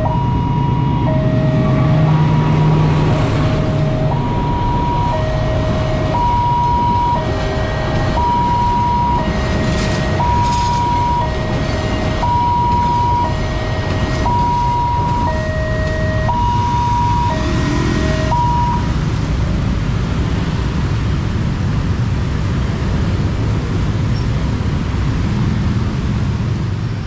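Railway level-crossing warning alarm sounding an alternating high-low electronic two-tone, each tone about a second long, over the rumble of a passing passenger train and idling motorcycles. The alarm stops about two-thirds of the way through, once the train has cleared, leaving the road traffic.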